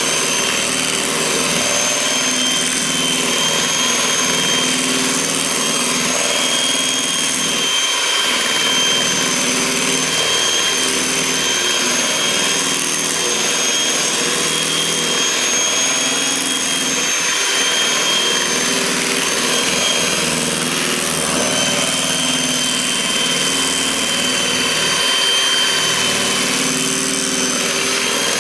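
A small electric kitchen appliance motor running steadily for the whole time, with a constant high-pitched whine over a whirring noise.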